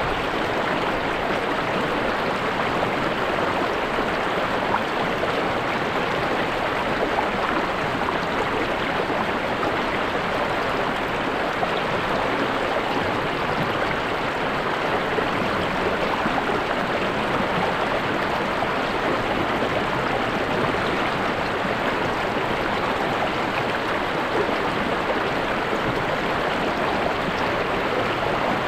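River or stream water flowing over rocks, a steady even rush and babble.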